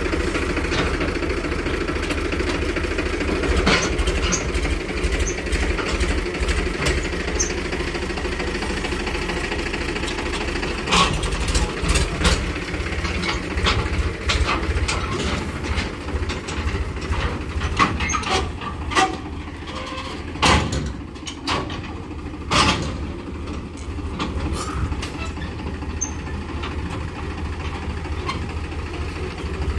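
Powertrac Euro 50 tractor's three-cylinder diesel engine running at low revs while it pulls a loaded farm trolley forward. Several sharp knocks and clanks come through, most of them in the later half.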